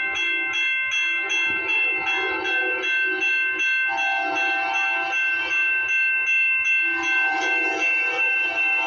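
Railroad grade-crossing warning bell ringing in fast, regular strikes with the gates down. The horn of an approaching Amtrak passenger train sounds in the distance now and then.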